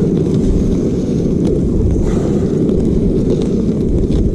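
Wind buffeting the microphone: a loud, steady low rumble with no pitch to it, with a few faint scattered clicks over it.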